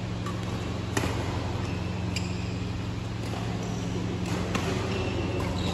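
Badminton rackets striking a shuttlecock, a few sharp smacks spaced a second or more apart, with short high squeaks of sneakers on the court floor. A steady low hum runs underneath.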